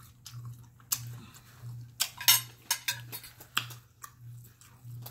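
Metal fork clinking and scraping against a plate as food is cut and picked up, with a few sharp clicks, the loudest about two to three and a half seconds in.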